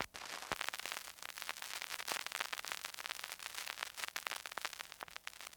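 Faint record surface noise after the music stops: a hiss with many irregular crackles and clicks, like a stylus in the run-out groove of a vinyl single.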